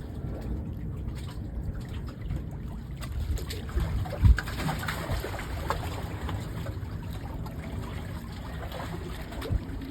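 Seawater lapping and trickling at the shore, with small splashes and a steady low rumble. A single sharp thump about four seconds in is the loudest sound.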